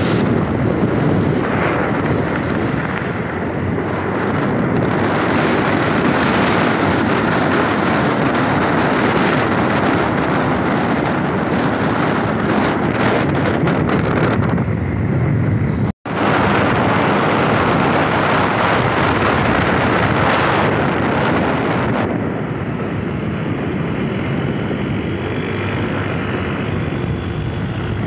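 Steady rush of wind on the microphone mixed with engine and road noise from the moving vehicle carrying the camera. The sound cuts out for an instant just past halfway, and is a little duller and quieter near the end.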